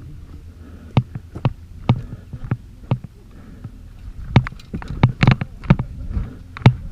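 A series of irregular sharp clicks and knocks, some in quick runs of two or three, over a steady low rumble.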